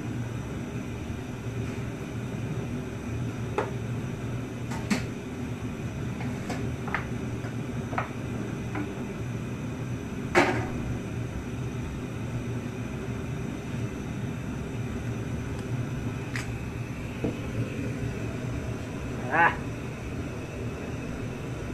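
Kitchen clatter over a steady low hum while a wok of tomato sauce cooks on a gas stove: scattered short clinks and knocks of a utensil or pan, the loudest about ten seconds in, and a brief pitched squeak near the end.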